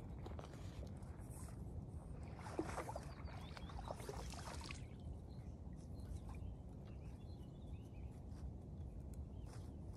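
A hooked sturgeon splashing at the water's surface as it fights the line, in a burst of about two seconds a few seconds in, over a steady low rumble.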